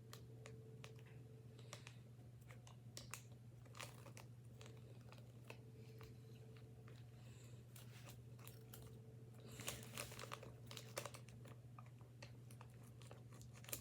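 Faint crinkling and small clicks from a plastic powder packet of a Popin' Cookin' candy kit as it is handled and poured, over a steady low hum. The crinkles come in a short cluster about ten seconds in.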